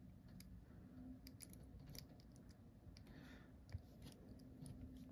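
Near silence with faint, scattered small clicks of a 1.5 mm hex wrench working the NPAS adjuster screw inside an airsoft bolt carrier's nozzle, one tick a little louder about three and a half seconds in.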